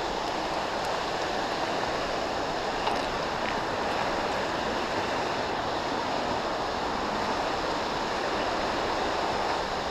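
Steady rushing of falling water from a waterfall and its creek.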